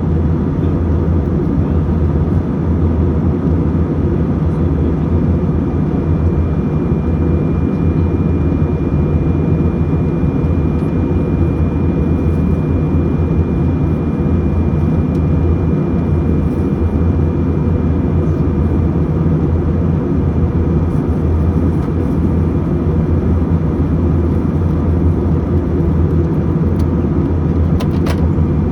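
Airliner cabin noise in cruise: a steady, loud low hum of engines and airflow, with a faint high thin tone holding through the middle.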